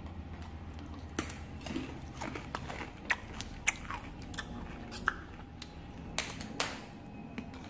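A hand handling a sheet of paper on a cloth-covered table: irregular light clicks and short rustles over a low steady hum.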